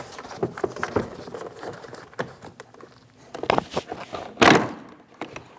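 Plastic retaining clips of a car's rear door trim panel popping loose as the panel is pulled away from the door by hand: a string of snaps and knocks, the loudest about four and a half seconds in.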